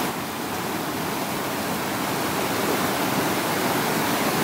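Shallow mountain stream rushing over rocks in small whitewater rapids: a steady, even rush of water.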